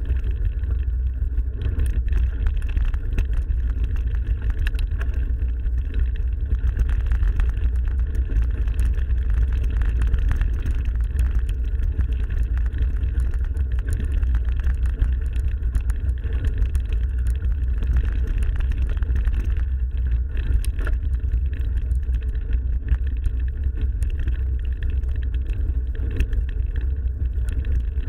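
Steady low wind rumble on an action camera's microphone during a mountain-bike ride, with faint scattered ticks and rattles from the bike on the trail.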